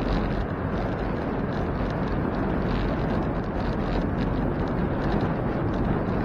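Wind buffeting the microphone while cycling, over a steady rumble of bicycle tyres on the road, with faint irregular rattling clicks.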